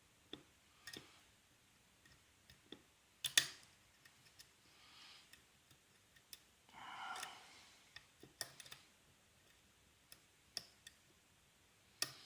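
Dimple pick and tension tool working in a Yale dimple rim cylinder: scattered small metallic clicks and light scrapes, with a sharper click about three seconds in and another near the end.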